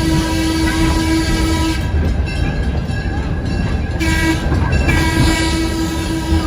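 Diesel locomotive's horn sounding over the rumble of the moving train: a long blast, a short blast about four seconds in, then another long blast.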